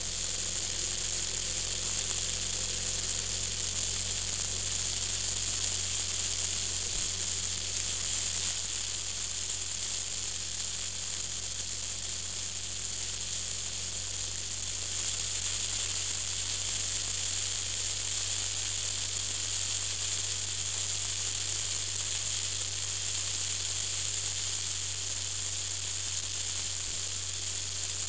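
Steady hiss of wind rushing over a vehicle-mounted camera at road speed, brightest high up, with a low steady drone underneath.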